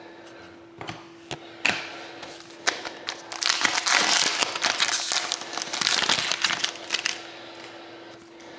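An Upper Deck Artifacts hockey card pack wrapper being torn open and crinkled for about four seconds, after a few sharp clicks of cards and a plastic holder being handled.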